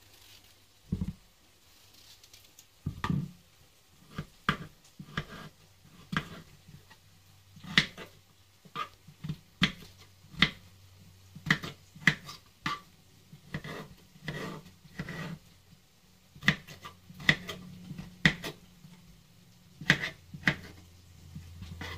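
Kitchen knife slicing and dicing raw potatoes on a cutting board, the blade knocking on the board in irregular sharp chops, one or two a second.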